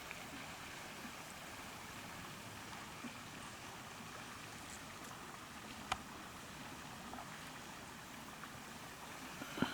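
Steady wash of water moving around a kayak. A sharp knock sounds about six seconds in and another near the end.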